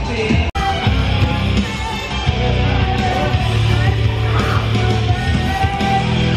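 Background rock music with guitar and a steady bass line, cutting out for an instant about half a second in.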